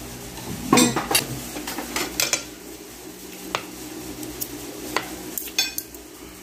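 Metal spoon and fork clinking and scraping against a plate while mixing gravy into rice. The clinks come irregularly, about a dozen, with the loudest about a second in.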